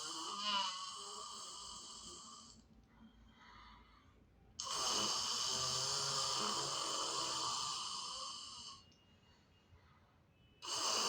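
A person doing lion's breath (Simhasana): forceful, hoarse roaring out-breaths from the throat with the tongue out. The first fades out early, a second starts suddenly about four and a half seconds in and lasts about four seconds, and a third starts near the end, with quiet in-breaths between.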